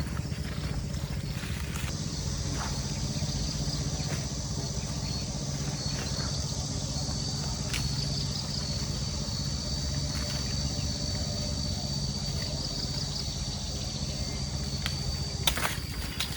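A small engine running steadily, with a high steady whine that comes in about two seconds in, and a few sharp clicks near the end.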